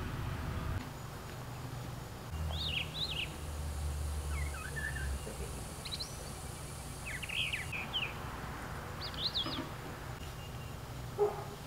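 Songbirds chirping outdoors in short, quick phrases, several separate calls a second or two apart, over a steady low hum.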